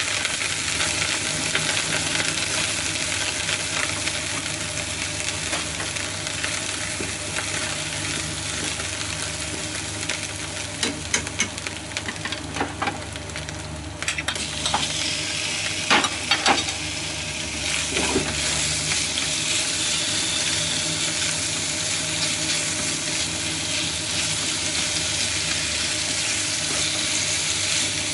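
Oil sizzling in a frying pan as chopped aromatics are stir-fried with wooden chopsticks. Around the middle, a run of sharp clicks and taps comes as sliced pork is pushed off a plate into the pan with the chopsticks, and the sizzling carries on under the meat.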